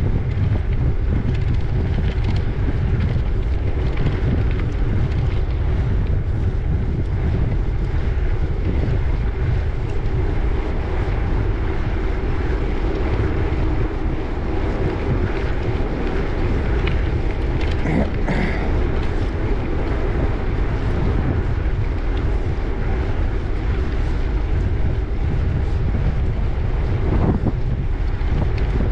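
Wind buffeting the microphone of a camera riding on a moving bicycle: a steady low rumble. There is a brief knock about two-thirds of the way in and another near the end.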